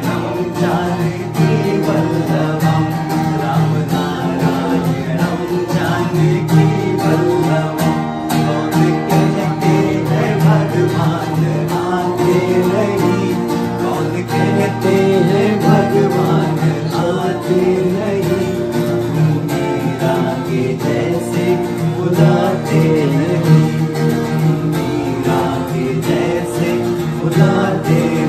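Acoustic guitar playing, with a voice singing along.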